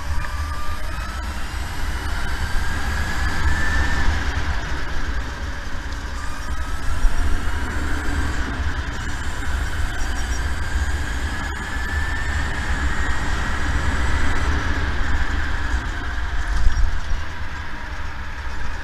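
SodiKart electric kart's motor whining, its pitch climbing as the kart accelerates, twice, with a long rise through the middle. Heavy wind rumble on the onboard microphone runs underneath.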